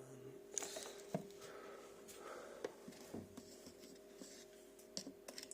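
Light handling of a plastic powder tub and its scoop: scattered small clicks and short rustles, over a faint steady hum.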